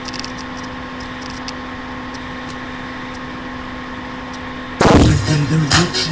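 Steady hiss with a low electrical hum, then about five seconds in hip-hop music comes back in loud and distorted, with heavy beats overloading the laptop's built-in microphone.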